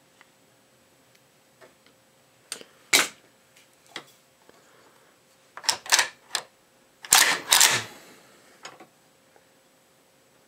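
Sharp metallic clicks and clacks of an AK-pattern pistol's trigger group being worked by hand, about nine in uneven succession, the loudest pair about seven seconds in.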